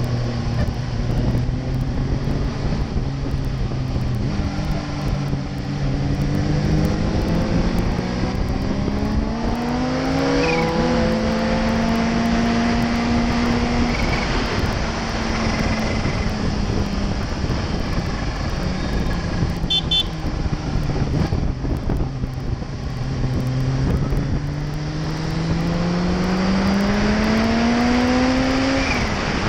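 Kawasaki Ninja H2's supercharged inline-four engine pulling through the gears: the revs climb twice, each climb ending in a sudden drop at an upshift, about ten seconds in and near the end, with a steady cruise and easing off between. Wind rush on the helmet-mounted microphone runs under it.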